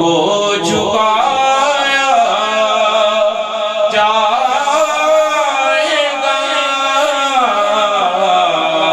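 A man's voice singing an Urdu devotional kalam (naat) solo, in long, melismatic phrases that rise and fall without a break.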